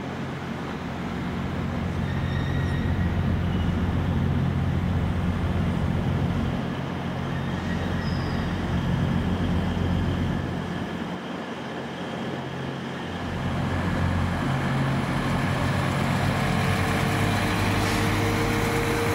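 Underfloor diesel engines of a Northern class 158 diesel multiple unit running as the train moves slowly through the station throat, a steady low rumble that dips for a moment partway through. Near the end a steady higher hum comes in as a class 195 diesel unit passes close by.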